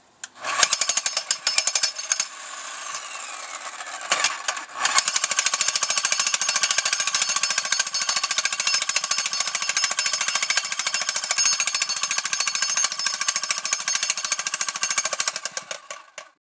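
Jackhammer hammering in rapid, continuous strokes. It starts about half a second in, runs lighter for a couple of seconds, stops briefly, then hammers steadily until it fades out just before the end.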